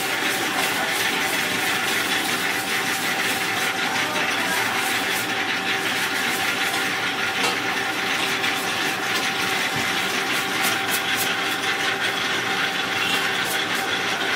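Wire balloon whisk beating a thick flour-and-egg batter in a large stainless steel bowl, with fast, continuous clicking and scraping of the wires against the steel. Under it runs a steady mechanical hum.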